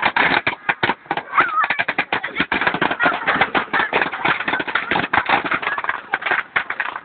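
A large wooden bonfire crackling and popping in a dense, irregular run of sharp clicks, with the indistinct chatter of a crowd behind it.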